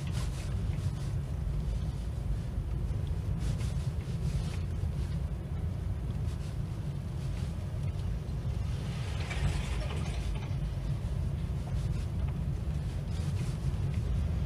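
Car driving, heard from inside the cabin: a steady low rumble of engine and tyres. An oncoming van passes with a swell of tyre hiss about nine to ten seconds in, and another oncoming car begins to pass at the very end.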